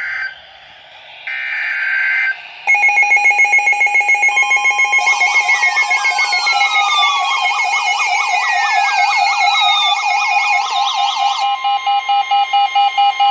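Several weather and EAS radios alerting at once. First come two short bursts of squawking data tones, the SAME header. From about three seconds in there is a steady EAS attention tone, layered with a fast pulsing beep, a rapidly warbling siren-like alarm and repeated falling sweeps.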